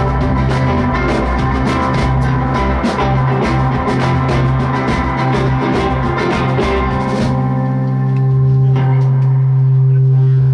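Live rock band playing, with drums and cymbals over a steady bass note. About seven seconds in the drums and cymbals stop, leaving a held chord and bass ringing.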